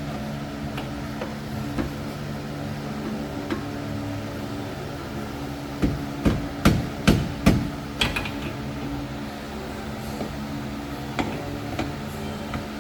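Hand hammer blows: about six sharp strikes in quick succession a little before the middle, then a few lighter taps, over a steady low hum.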